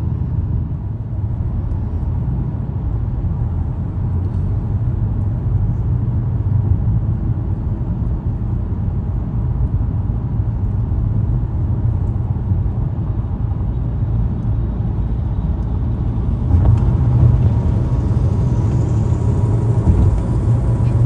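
Car driving at road speed, heard from inside the cabin: a steady low rumble of engine and tyre noise that gets louder about three-quarters of the way through.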